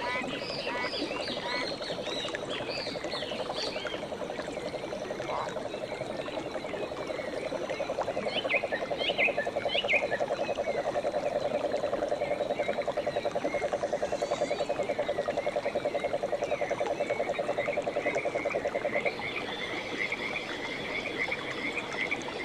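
Frogs calling in a continuous fast-pulsed trill that cuts off about nineteen seconds in, with higher chirping calls over it throughout.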